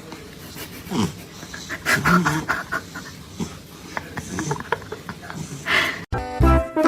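A dog panting and breathing in short, irregular bursts, with music cutting in near the end.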